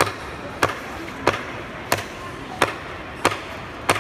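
Evenly spaced sharp knocks of hard striking, six in a row, about one every two-thirds of a second, like steady hammering or chopping.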